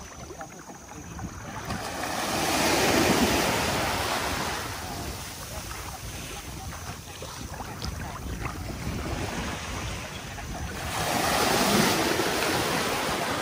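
Small sea waves washing in the shallows, swelling louder twice, about two seconds in and again near the end, with wind buffeting the microphone throughout.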